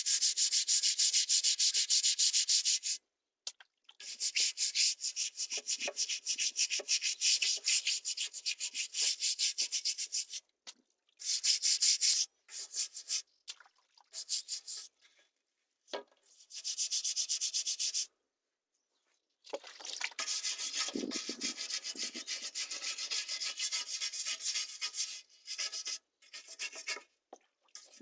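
Old roof tile being scrubbed clean by hand: rapid back-and-forth scraping strokes in runs of a few seconds, with short pauses between them, the longest about two seconds in, near the middle and after the three-quarter mark.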